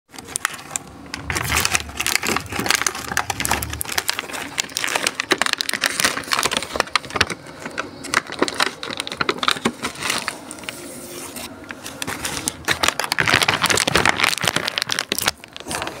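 Plastic bag and clear plastic food container crinkling and clicking as they are handled, a dense, irregular run of small crackles that eases off for a while a little past the middle.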